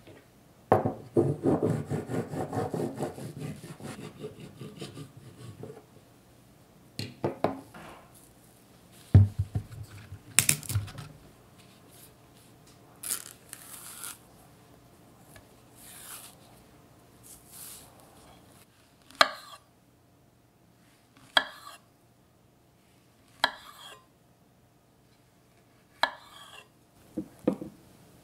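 Cake-making handling sounds on a wooden cutting board: a few seconds of scraping and rubbing as cocoa sponge cake layers are handled, a few knocks, then a banana being peeled, with short crisp sounds about every two seconds.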